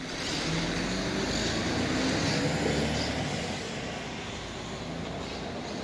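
City street traffic: a passing vehicle's engine and tyre noise, louder for the first three seconds and then easing off to a steady hum.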